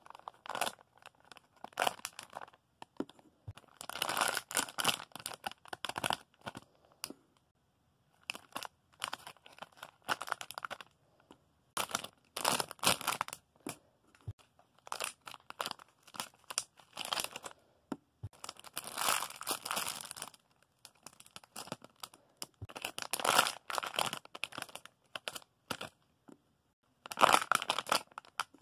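Plastic packaging crinkling in irregular bursts with short pauses, as bagged squishy toys are picked up and handled.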